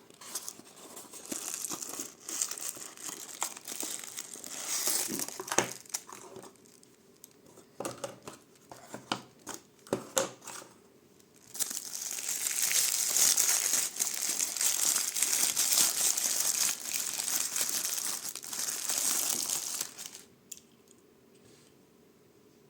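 Plastic-and-card packaging of a Matchbox die-cast toy car being torn open and crinkled by hand. Scattered crackles and clicks come first, then a long stretch of steady crinkling and tearing that stops shortly before the end.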